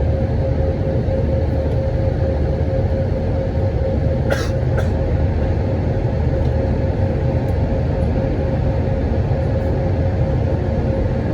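Steady cabin drone of an Airbus A319 in the air, its jet engines and the airflow heard from inside the cabin, with a constant hum running under it. Two short clicks about four seconds in.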